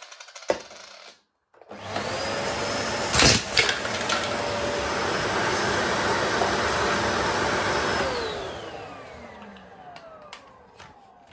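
Bosch BGS21X320 bagless vacuum cleaner with a carpet brush switched on, running steadily with a whine, with a couple of sharp clacks shortly after start-up as buttons are sucked up. About eight seconds in it is switched off, and the motor's whine falls in pitch as it spins down.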